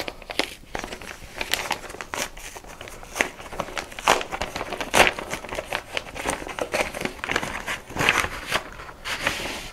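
A large kraft-paper envelope being handled and its paper contents slid out: irregular crinkling and rustling of paper with sharp crackles, loudest about five seconds in and again around eight seconds.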